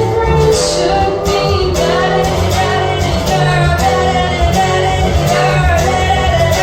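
A singer performing a pop song live with band accompaniment: sustained sung notes over a low bass line and a steady beat.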